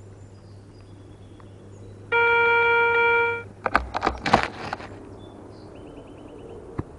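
A metal detector sounds one steady electronic beep lasting about a second and a half, signalling a target. Right after it comes a brief cluster of knocks and scrapes, with a short run of faint quick ticks near the end.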